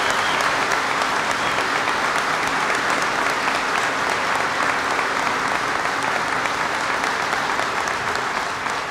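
Large audience applauding: steady, dense clapping that begins to fade near the end.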